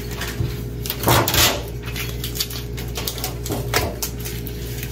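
Kitchen handling noises: a few short knocks and clinks of a baking pan and dishes, the loudest about a second in, over a steady low hum.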